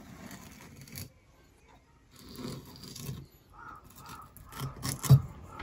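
Kitchen knife scraping and cutting on a plastic cutting board while small fish are filleted, with a sharper knock about five seconds in.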